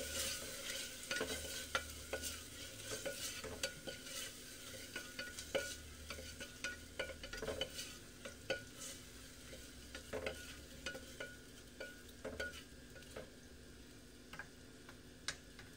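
Chopped tomato and spice paste frying in oil in an aluminium pressure cooker, sizzling softly while a spatula stirs it and knocks and scrapes against the pot's metal sides. The stirring stops a couple of seconds before the end, and the sizzle quietens.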